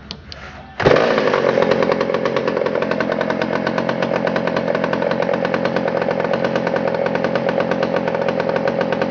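1967 McCulloch 797 chainsaw's 123cc single-cylinder two-stroke engine firing up about a second in and then running steadily with rapid, even pulses, with the distinct exhaust crack of these vintage McCullochs.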